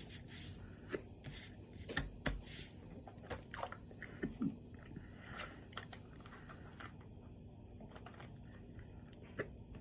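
A person biting into and chewing a steak and cheese sandwich close to the microphone, with sharp crunches in the first few seconds, then softer chewing.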